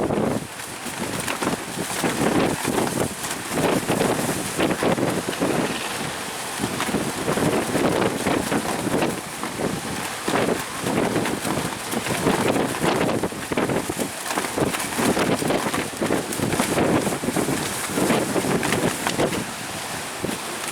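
Strong, gusty wind buffeting the microphone, rising and falling in surges every second or two.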